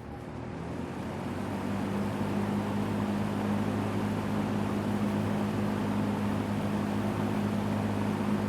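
2000 Lakewood P-25 box fan running on high: a rush of air from its four metal blades over a steady low hum from its McMillan motor, growing louder over the first couple of seconds and then holding steady.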